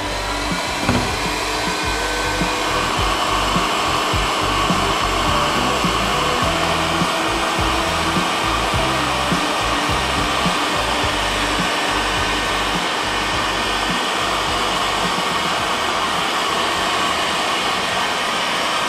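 Ozito 2000W heat gun blowing hot air steadily, its fan giving an even rushing noise.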